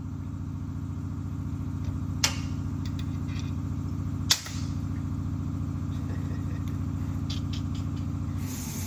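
A steady machine hum, which stops near the end, with two sharp clicks about two seconds apart.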